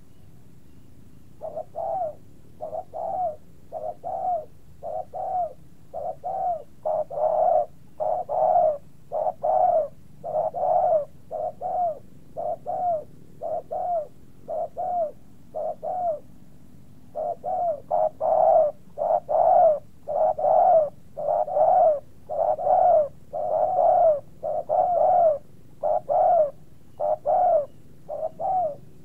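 A dove-like cooing call repeated over and over, short notes about one to two a second, with a brief pause around the middle.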